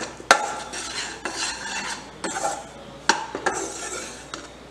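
Perforated steel spatula stirring and scraping dry, crumbly panjiri (ghee-roasted flour and ground coriander) around a white-coated kadhai over high heat. Sharp knocks of the spatula on the pan come just after the start, again a moment later, and about three seconds in.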